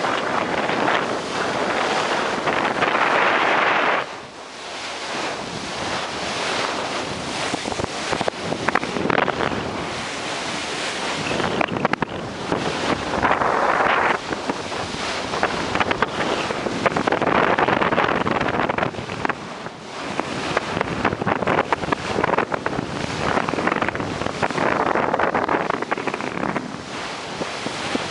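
Water rushing and splashing off a moving boat's bow wave, with wind buffeting the microphone; the rush swells and eases in surges.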